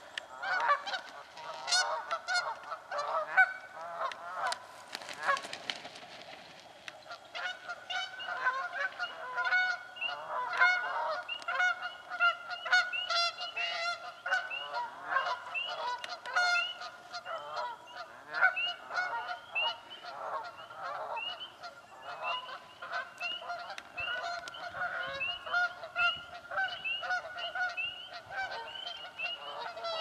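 Many Canada geese honking continuously, overlapping calls from several birds at once, as the flock contests nesting territory.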